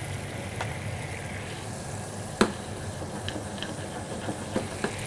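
Sauce with chicken stock bubbling in a hot wok, with a few light clicks of a utensil against the wok, the loudest about two and a half seconds in.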